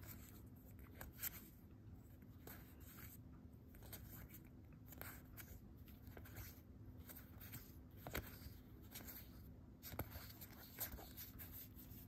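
Faint rubbing and soft, scattered flicks of Magic: The Gathering cards being slid one over another by hand while thumbing through a deck, over a low steady hum.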